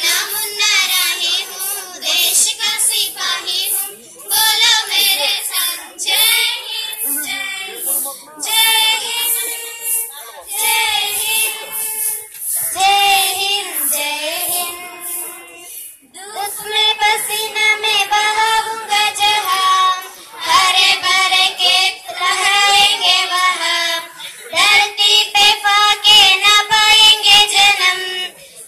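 Young girls singing a song with no accompaniment, in sung phrases of about four seconds each, separated by short breaths.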